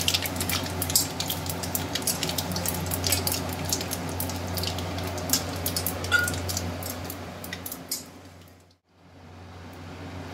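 Whole spices for a tempering (panch phoron, dried red chillies and bay leaves) crackling and spitting in hot mustard oil in an aluminium kadai. The crackling is dense for most of the time, then thins out and briefly drops away near the end.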